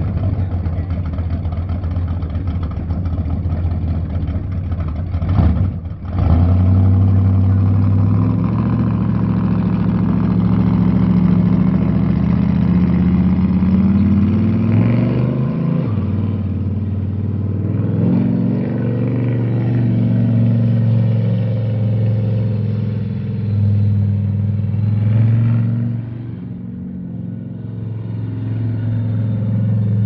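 Engine running with a steady, strong low note whose pitch rises and falls several times as the power changes, with a sudden jump in loudness about six seconds in.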